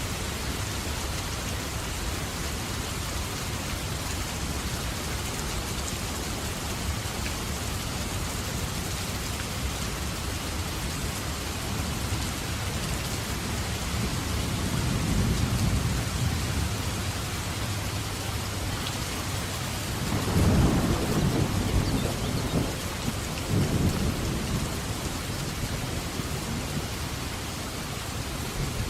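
Steady heavy rain with thunder rolling in twice, a softer low rumble in the middle and a louder, longer one about two-thirds of the way through.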